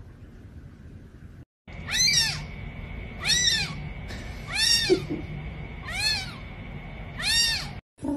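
Very young kitten mewing: five high-pitched cries, evenly spaced, each rising then falling in pitch, starting about two seconds in.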